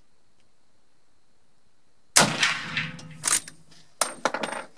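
A Pedersoli Boarbuster Evolution .45-70 lever-action rifle fires a single shot about two seconds in. The shot rings on for a moment. Sharp metallic clacks follow as the lever is worked to cycle the action.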